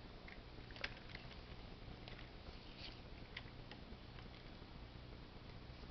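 Faint scattered clicks and scratches from a hamster moving over a computer keyboard and a paper envelope, with one sharper click about a second in, over a steady low hum.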